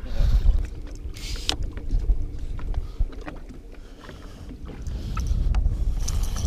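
Wind buffeting the microphone and water lapping at a small fishing boat's hull, an uneven low rumble with scattered faint clicks and a brief hiss a little over a second in.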